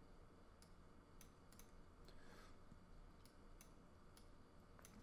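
Near silence: room tone with faint, scattered computer mouse clicks.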